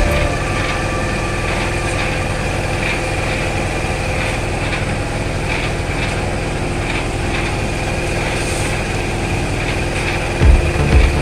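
Small engine of a portable drum concrete mixer running steadily, with faint scrapes of shovels in gravel about once a second. Loud low thuds come in near the end.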